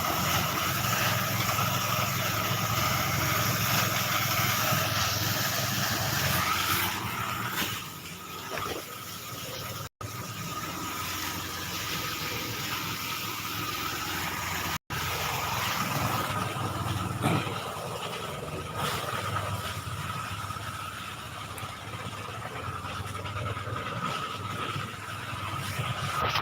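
Rice threshing machine running steadily, a constant mechanical whine over a low hum. The sound cuts out abruptly twice, for an instant each time.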